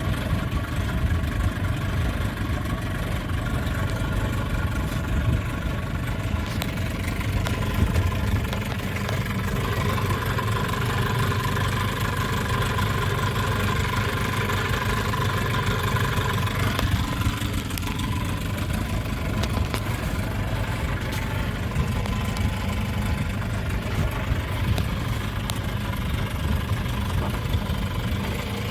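9.9 hp Evinrude outboard motor running steadily at low speed, with small shifts in its pitch about a third and halfway through.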